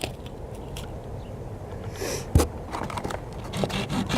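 Handling noise as the camera is moved and set in place: scraping and rustling, a sharp knock about two and a half seconds in, and small clicks near the end.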